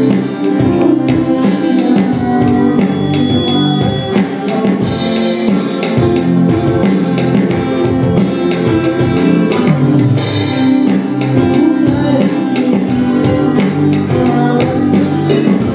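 Live band playing a song: a man sings into a microphone over tabla, electric guitar and two violins, with a steady, quick run of tabla strokes under the melody.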